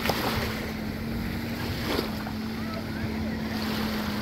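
Jet ski engine droning steadily, a single even hum that drops slightly in pitch about two seconds in, over small waves lapping and wind on the microphone.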